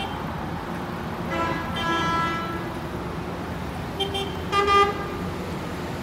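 Coach horns honking over a steady low engine drone: two overlapping honks about a second and a half in, then two shorter ones around four seconds in, the second of them the loudest.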